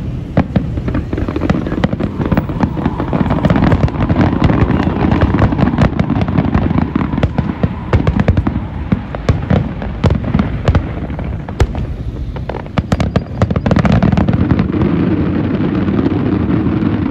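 Fireworks going off in a dense, continuous barrage: rapid crackling pops and bangs over a steady low rumble. The barrage thickens again in the last few seconds.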